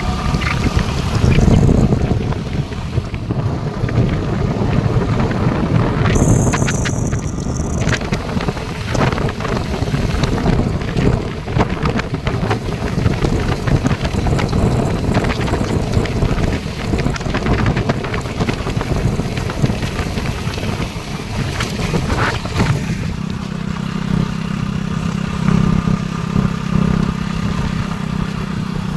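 Wind rushing over the microphone with the running of a motorcycle engine and its tyres on a rough dirt road. The engine's steady low hum comes through more clearly near the end.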